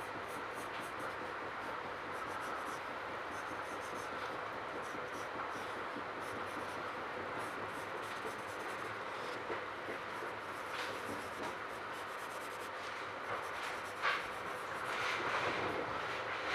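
Pencil scratching on sketchbook paper over the steady running noise inside a Metra commuter train car. The train noise grows louder near the end.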